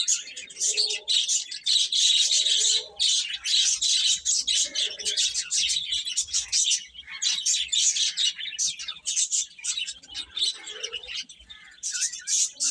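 A flock of baby chicks peeping nonstop in a dense, overlapping chorus of high chirps. A lower, short call breaks in now and then.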